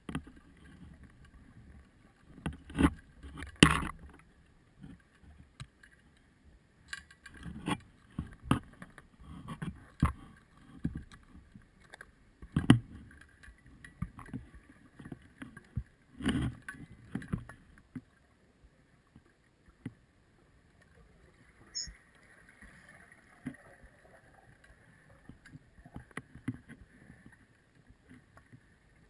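Underwater noise: irregular knocks and low water-sloshing sounds over a faint steady hum, thinning out to a quieter stretch past the middle, with one brief high beep.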